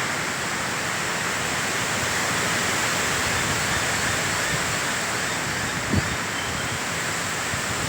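Steady rushing noise of cyclonic wind, with a faint knock about six seconds in.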